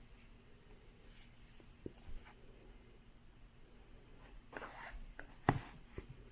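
Soft scraping and rustling from handling an iPad in an Apple Magic Keyboard case, with a sharp knock about five and a half seconds in and a smaller click half a second later.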